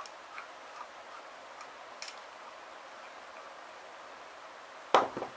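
A few faint, light clicks as the small metal YS F-120 model glow engine is handled and turned over in the hands, over a low hiss. A single sharp knock comes near the end.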